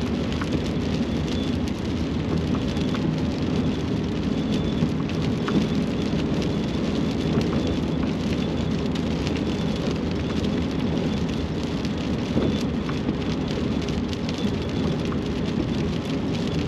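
Steady road and tyre noise of a pickup truck driving at highway speed, heard inside the cab, with a faint low engine hum under an even hiss.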